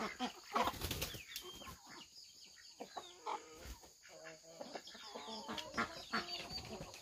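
Chickens clucking in a run of short, overlapping calls, with a brief burst of noise about a second in.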